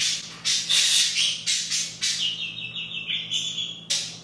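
A pet bird calling loudly: a run of short, sharp, high calls, then one longer call of about two seconds, and a short call near the end.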